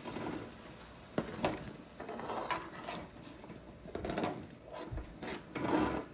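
Kitchen cookware being handled while cooking: scattered knocks and clicks with a few short rustling swells in between.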